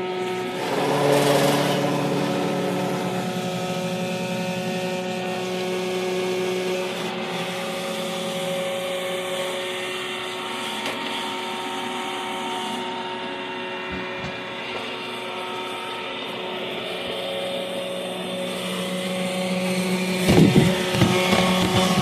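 iRobot Roomba i3 robot vacuum running up close: the vacuum motor and brushes give a steady whine over a rushing noise, with a few knocks near the end as the robot bumps and scrapes along a wall.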